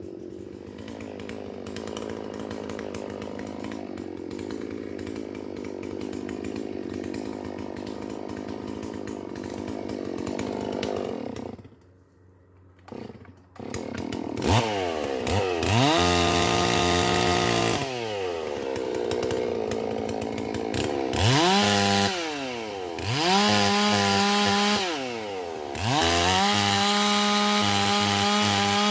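Holzfforma G444 two-stroke chainsaw, a Stihl MS 440 clone, first running steadily at a lower speed and then briefly near silent about twelve seconds in. From there it is revved up to full throttle about four times, held high for a second or a few seconds each time, and dropped back down between.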